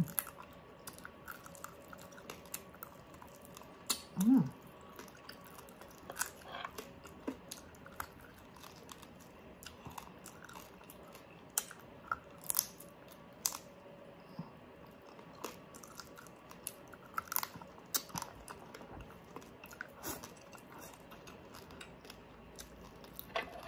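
Close-miked chewing of crispy pata (deep-fried pork knuckle), with irregular crisp crackles and wet mouth clicks. A short hummed vocal sound comes about four seconds in.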